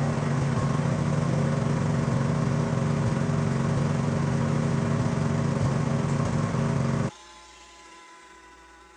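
Snow blower's small gasoline engine running steadily at a constant speed, cutting off abruptly about seven seconds in, after which only faint music remains.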